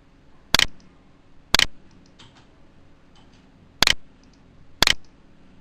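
Computer mouse button clicks: four sharp clicks in two pairs, the clicks in each pair about a second apart.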